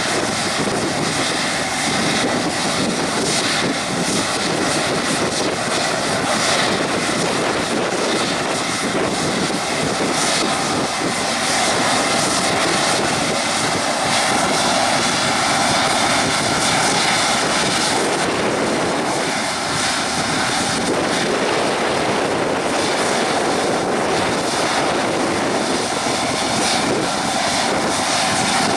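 Boeing 777-200ER's twin turbofan engines idling steadily while the airliner holds on the runway before take-off: an even rush with a faint steady whine.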